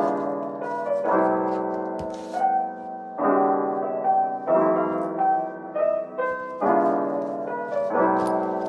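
Background music: a gentle piano piece playing slow, sustained chords.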